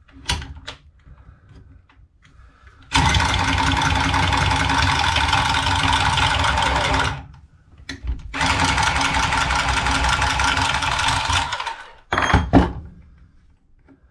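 Power saw cutting through boiler piping in two steady runs of about four and three seconds, with a short pause between them. A brief knock follows near the end.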